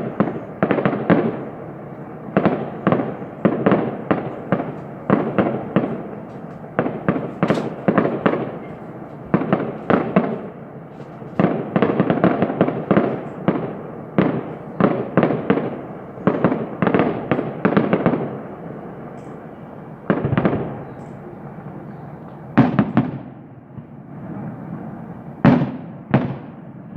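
Fireworks going off: a dense run of bangs and crackles that thins to a few single bangs spaced a couple of seconds apart in the last third.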